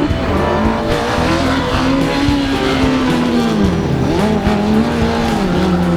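Car engine revving, its pitch climbing and dropping several times as it is driven hard through the gears.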